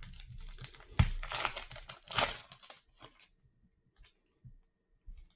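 Foil trading-card pack wrapper being torn open and crinkled, with a sharp loud rip about a second in and another just after two seconds; the crackling stops after about three seconds, leaving a few faint clicks.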